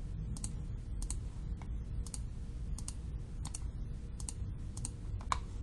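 Computer mouse clicking about a dozen times at an uneven pace, roughly two clicks a second, over a faint low steady hum.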